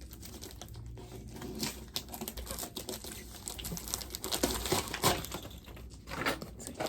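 Plastic wrapping of a shipping package rustling and crinkling as it is handled, with irregular crackles and small clicks.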